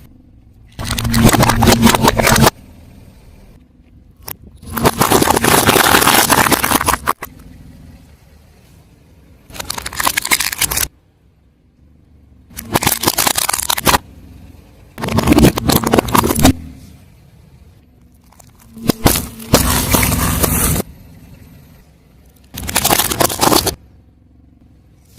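Car tyre rolling over and crushing objects, seven loud crunching bursts of one to two and a half seconds each, with quieter gaps between.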